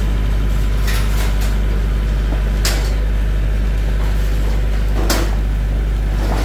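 An engine idling steadily with a low hum, with a few sharp knocks about one second, nearly three seconds and five seconds in.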